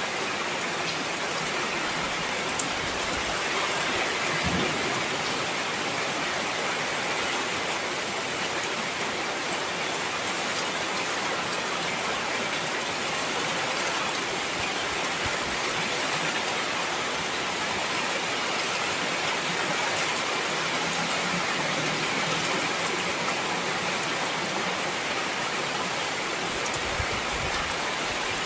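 Heavy rain falling steadily, a dense even hiss of drops on surfaces, with a few faint low thuds.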